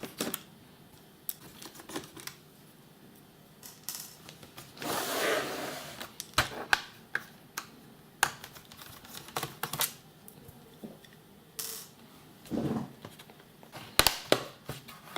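Screwdriver and screws on a laptop's plastic bottom case: scattered light clicks and taps as screws are worked out, with a short scraping rustle about five seconds in and another near the end.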